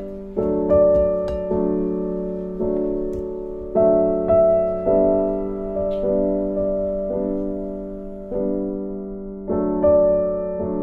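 Background piano music: gentle chords struck about once a second, each ringing and fading before the next.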